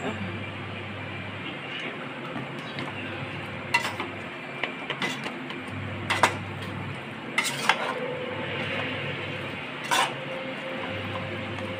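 Metal spoon clinking and scraping against a cooking pot during stirring, a handful of sharp clinks over a steady background hiss.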